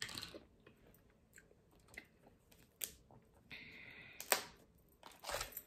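Steamed blue crab being pulled apart by hand: scattered sharp cracks and snaps of the shell, with a brief rustle just before the loudest crack.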